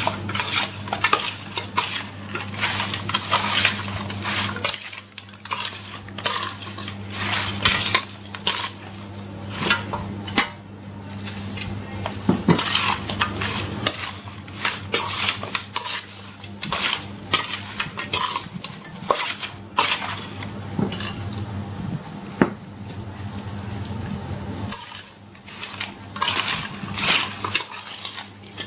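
Metal utensil clattering and scraping against a cooking pan, stirring the food in quick irregular strokes, over a steady low hum.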